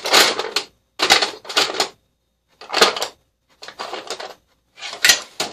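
Metal hand tools clinking and clattering against each other and the drawer as they are handled in a tool box, in five short bursts of sharp clanks with brief gaps between.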